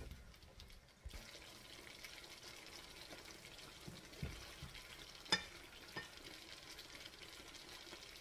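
Creamy mushroom sauce simmering and faintly sizzling around chicken legs in a skillet, starting about a second in. A few light clicks of a fork and knife against the pan, the loudest about five seconds in.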